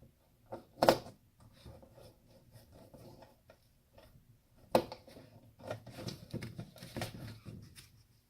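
Small screwdriver and hands working on a CD drive's metal and plastic casing: two sharp clicks, about a second in and just before five seconds, then a run of small ticking and rattling clicks.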